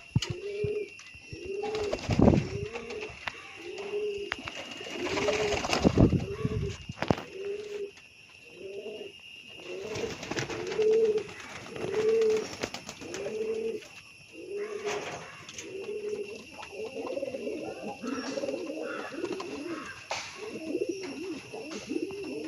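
Domestic fancy pigeons cooing over and over, about one coo a second, with several birds overlapping toward the end. Two louder rustling noises come about two and five seconds in.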